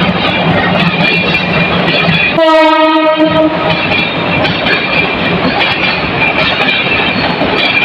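A train passing on the rail line, its running noise steady throughout. About two and a half seconds in, its horn sounds a single blast of about a second.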